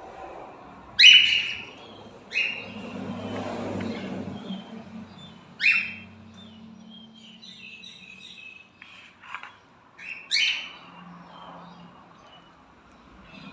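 Pet cockatiels calling: four loud, high-pitched calls spaced a few seconds apart, with softer chirps in between.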